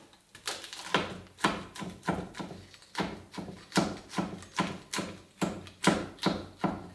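Kitchen knife chopping a dried chili pepper on a wooden chopping board: steady, even chops, about two to three a second, beginning about half a second in, each a sharp knock of the blade on the wood.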